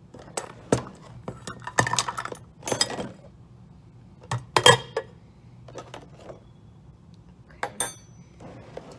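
Cookware and utensils handled on a tabletop: a saucepan, plastic measuring cups and a bowl lifted out of a plastic bin and set down. Irregular clinks and knocks come in small clusters, with a brief metallic ring near the end.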